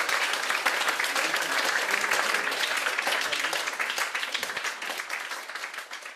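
Theatre audience applauding, many hands clapping, fading out over the last two seconds.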